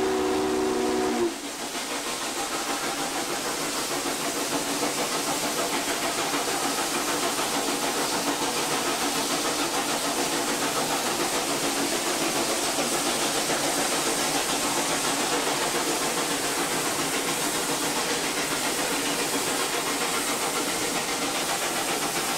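Norfolk & Western 611's steam whistle sounding a held chord of several tones that cuts off about a second in, then the steady hissing rush of the steam locomotive running at speed, heard from inside its cab.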